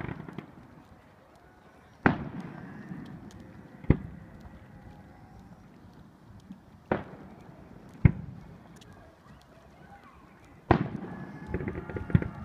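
Aerial fireworks bursting: five sharp booms a second or more apart, each with a short echoing tail, followed near the end by a dense crackling of many small pops.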